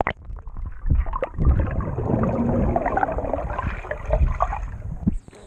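Muffled underwater sound of a swimming pool, heard by a submerged camera: bubbles gurgling and irregular low thumps from a swimmer's strokes and kicks.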